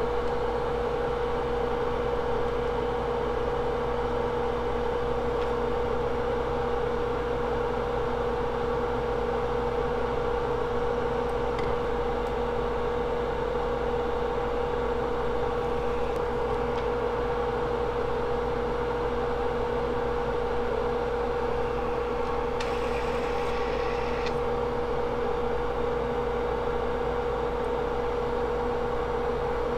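Steady electrical hum and hiss with one constant mid-pitched tone, from running bench equipment. About two-thirds of the way through, a faint hiss joins it for a couple of seconds.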